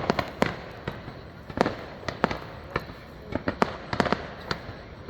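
Fireworks going off: a dozen or so sharp bangs at irregular intervals, some with a short echo.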